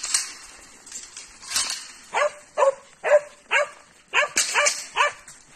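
A dog barking, about eight short sharp barks in quick succession starting about two seconds in.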